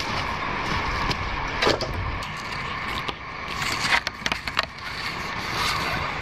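Wooden sticks and cord being handled while a stick is lashed to a tree trunk: a few sharp wooden knocks and clicks, most of them clustered about four seconds in, over a steady background drone.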